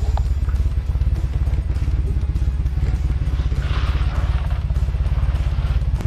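Dune buggy driving over a rough dirt track: a steady, loud low engine rumble, with a brief hiss about four seconds in.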